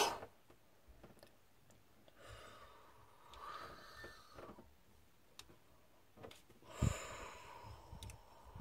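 Quiet breath-like puffs and small plastic handling clicks, with one louder short bump about seven seconds in.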